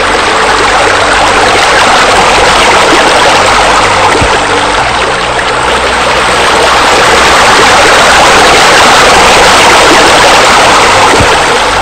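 Steady rushing of falling water, a spa spillover and sheer water features pouring into a swimming pool, with soft ambient music underneath. The water sound swells in and holds at a steady level.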